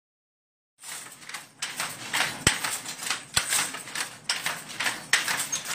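Handloom being worked by hand: a fast, irregular clatter of wooden clicks and knocks, starting about a second in.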